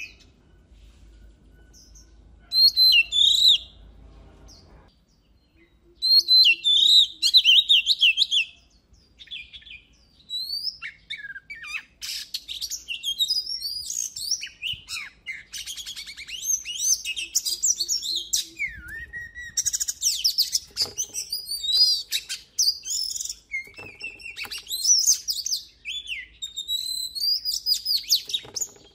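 Oriental magpie-robin singing: loud bursts of varied whistles and rapid trills, with short pauses in the first few seconds, then a near-continuous run of song.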